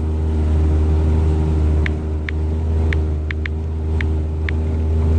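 Steady low engine drone of a vehicle under way, with about seven short high ticks scattered through the middle seconds.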